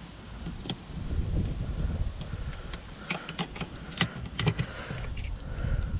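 Scattered light clicks and taps of a flathead screwdriver and fingers working at a plastic connector clip that will not release, over a low rumble.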